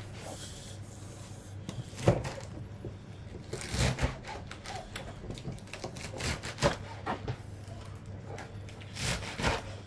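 Scattered light knocks, taps and rustles of onion being peeled and handled over glass bowls and a plate, with one sharper knock about two seconds in. A low steady hum runs underneath.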